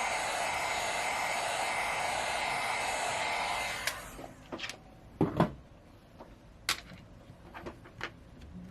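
Heat gun blowing steadily to dry leftover isopropyl alcohol from a phone's battery bay, switched off about four seconds in and dying away. Then scattered clicks and knocks of handling, the loudest a double knock a second later.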